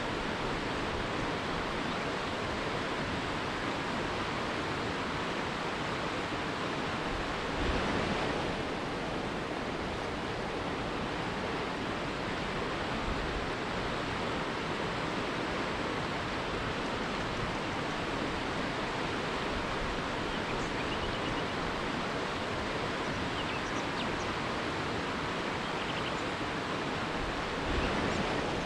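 River rapids: a steady rush of fast water over rocks, swelling briefly twice. A few faint bird chirps come through in the second half.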